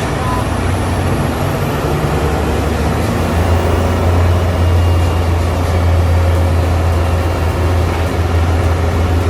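Large heavy-vehicle engine running steadily with a deep hum, growing louder about three and a half seconds in.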